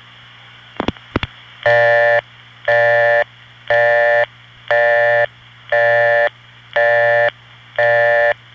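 Old Bell System busy signal heard over a phone line: a buzzy, reedy tone pulsing on and off about once a second, like an Englishman saying "burp" over and over. A couple of sharp line clicks come about a second in, before the pulses start, over a steady line hiss and hum.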